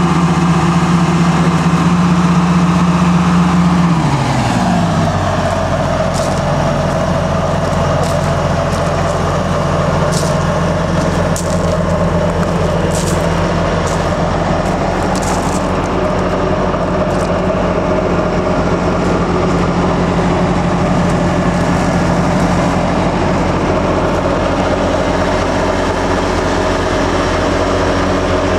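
1979 Bantam 366C excavator's diesel engine running at raised throttle, then winding down about four seconds in and idling steadily.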